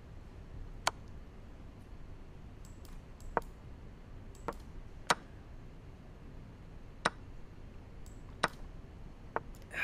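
Sharp single clicks, about seven at irregular intervals, from moves being played in an online bullet chess game, over a faint steady room background.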